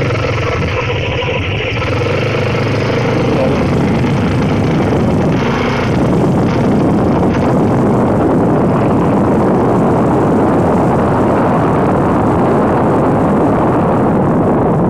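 Scooter engine running steadily while riding, heavily mixed with wind rushing over the microphone; the wind noise grows louder and takes over about six seconds in.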